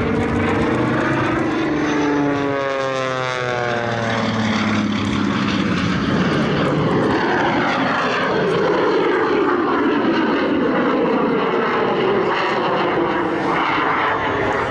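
Screamin' Sasquatch jet Waco biplane in aerobatic flight: its radial piston engine and propeller drone together with the rush of its added jet engine. The engine note drops in pitch about two to four seconds in as the plane passes, then gives way to a rushing sound that swells and fades.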